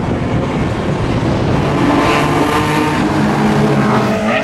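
Street-legal race cars' engines at high revs on the circuit, the engine note stepping in pitch a few times as they accelerate.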